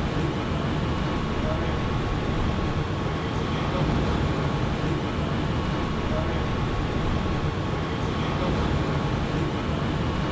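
Steady low rumble of motor vehicles running, with a faint steady whine above it.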